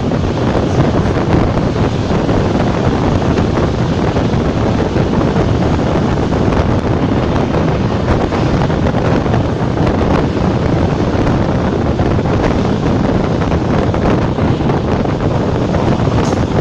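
Class 460 electric multiple unit running at speed, a steady rushing noise of the moving train with heavy wind buffeting on the microphone.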